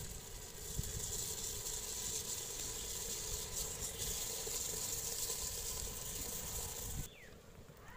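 Raw rice grains poured in a steady stream into a large metal pot of hot water, making an even hiss as they shower into the water; it stops abruptly near the end.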